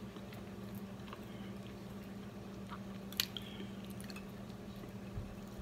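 Close-up chewing and biting of fried chicken, with scattered small mouth clicks over a steady low hum. About three seconds in comes one sharp click with a short ring.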